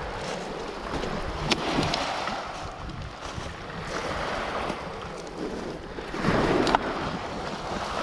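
Small waves lapping and washing over a pebble beach, with wind on the microphone. There is a sharp knock about a second and a half in, and a louder surge of water with a click around six and a half seconds.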